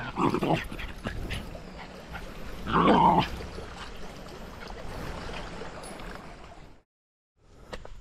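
A dog whining and whimpering in short, wavering bursts, loudest at the start and again about three seconds in. The sound cuts out completely for a moment near the end.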